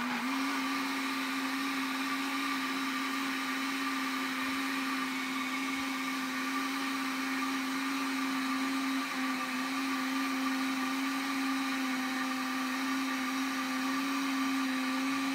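Arno electric countertop blender switched on and running steadily at one speed with an even motor hum and whir, blending a runny cake batter of eggs, oil, milk, sugar and flour.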